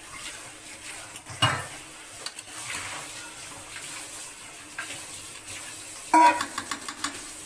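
Goat meat and onions sizzling in a kadai on medium heat while a long metal spatula stirs and scrapes against the pan. The meat is being browned (kosha). The loudest scrape comes about six seconds in.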